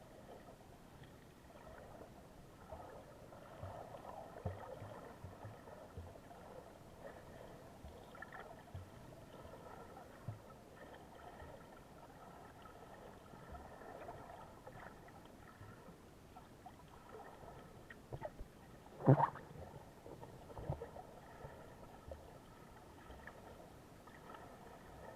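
Faint seaside ambience of gentle water movement, with a single short, louder knock about nineteen seconds in.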